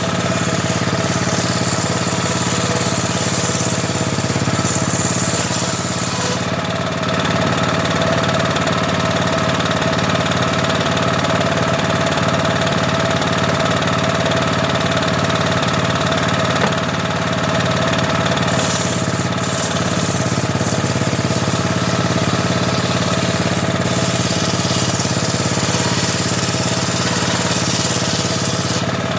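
Homemade table saw running steadily under power, with a bright hiss added when the blade cuts teak: for the first several seconds, briefly about two-thirds through, and again near the end.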